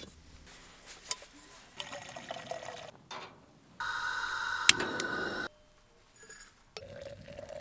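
Camp cooking gear being handled, then a propane camp stove burner hissing steadily for about a second and a half with a sharp click of the lighter partway through. The hiss starts and stops abruptly.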